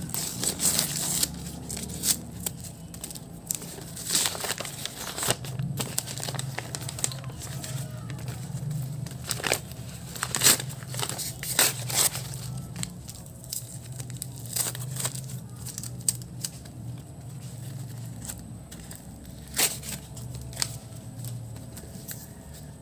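Paper and packing tape being torn and crumpled by hand as a firecracker's wrapping is stripped off, in a series of short, irregular rips, over a low steady hum.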